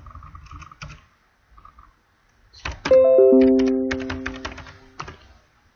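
Computer keyboard keys clicking in short runs of typing. About three seconds in, a loud electronic notification chime of several notes starts and fades away over about two seconds, while more key clicks sound over it.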